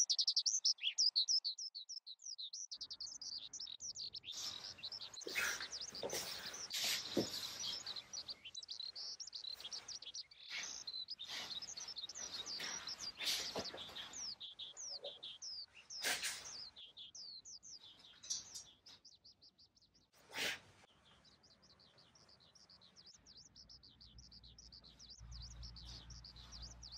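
Small birds chirping rapidly and continuously in high-pitched twitters. Through the middle comes rustling and handling of kimono fabric as it is put on, with a few soft knocks.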